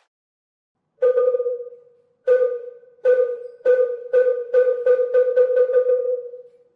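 A struck wooden percussion instrument with a single ringing pitch. It plays about a dozen strokes that start slow and speed up into a quick roll, the last one fading out near the end.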